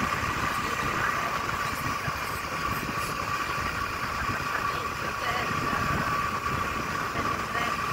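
Motor scooter riding at a steady speed: the engine runs with a steady whine over a rough rushing of wind on the microphone.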